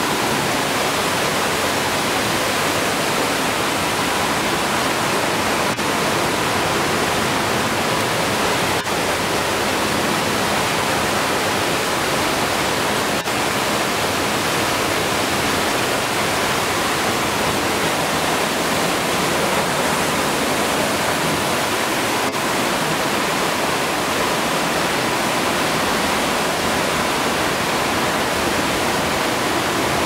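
Waterfall in a narrow sandstone slot canyon pouring into a shallow pool: a steady, loud rush of falling water.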